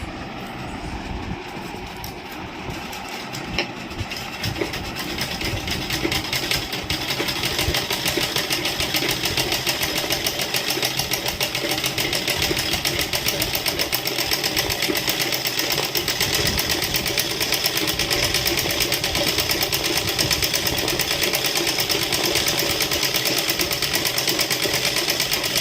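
Domestic sewing machine running steadily with a rapid needle clatter while doing embroidery stitching. It speeds up and gets louder about six seconds in.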